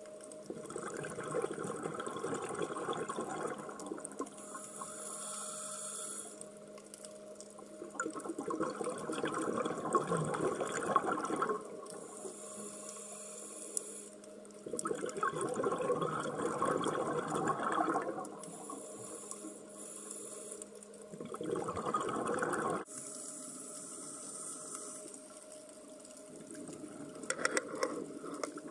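Scuba diver breathing through a regulator, heard through the camera housing: four long gurgling rushes of exhaled bubbles several seconds apart, with a softer hiss of inhalation between them. A few sharp clicks near the end.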